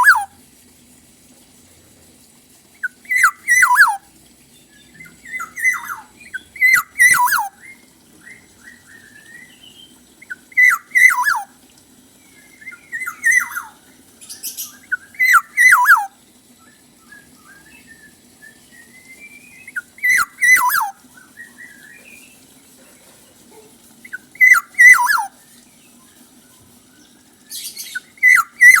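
Kepodang (oriole) singing: short loud phrases of falling whistled notes with harsh, scratchy clicks, repeated every two to four seconds. A faint steady low hum runs underneath.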